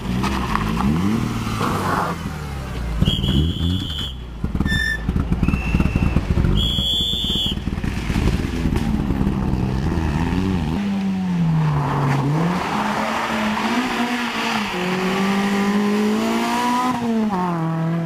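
Rally cars' engines revving hard as they pass on a tarmac stage, the pitch climbing through the gears and dropping on the lift-off. Two short high-pitched squeals in the first half.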